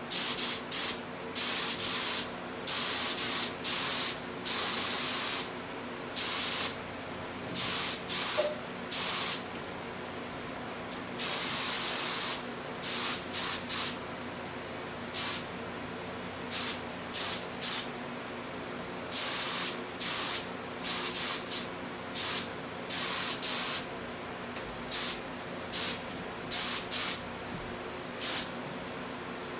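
Compressed-air spray gun with a gravity-feed paint cup spraying paint in repeated hissing bursts, from under a second to about two seconds each, starting and stopping sharply as the trigger is pulled and released.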